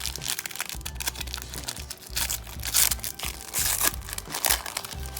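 A Magic: The Gathering booster pack's wrapper crinkling and tearing as it is torn open, with the crackling densest in the second half. Background music with a low repeating beat plays underneath.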